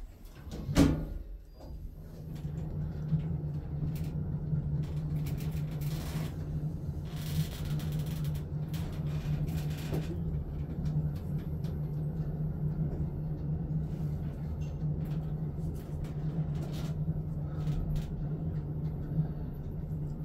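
2005 KONE Ecodisc lift: the car doors shut with a thud about a second in, then a steady low hum as the car travels up to its called floor.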